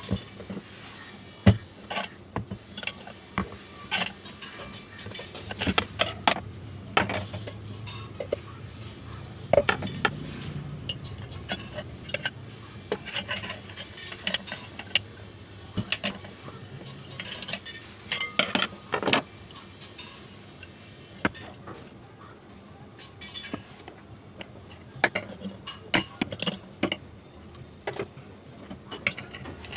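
Irregular metallic clicks, taps and clinks of fan parts and tools being handled during a fan bearing repair.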